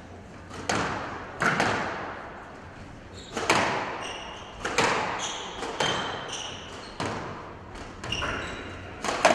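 Squash ball struck back and forth in a rally: sharp, echoing racket strikes and wall hits roughly once a second, with short squeaks of court shoes on the floor in between.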